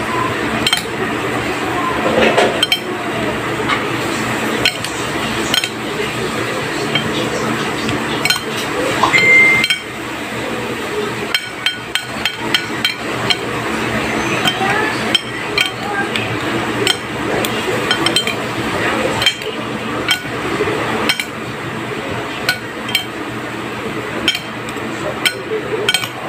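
Metal spoon clinking and scraping against a ceramic plate as dressed cucumber slices are tossed, in many irregular sharp clinks.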